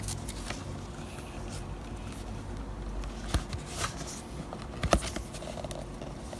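Quiet handling noise: a few light clicks and rustles of paper and card being moved about, the sharpest about three and a half and five seconds in.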